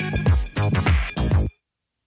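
Electronic dance music with a steady beat of about two beats a second, cutting off suddenly about one and a half seconds in, followed by silence.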